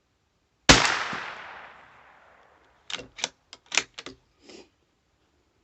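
A single loud gunshot about a second in, its echo fading over about two seconds. A quick run of about seven short, sharp clicks follows.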